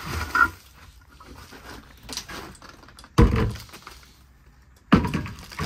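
Loose wooden boards and debris clattering, with three sharp knocks: one right at the start, one about three seconds in and one about five seconds in, and faint rustling of rubble between them.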